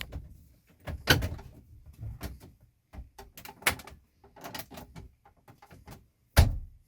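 Irregular clicks, knocks and rattles of plastic dash trim and parts being handled and fitted back into place in a Ford F-150, with two louder knocks about a second in and near the end.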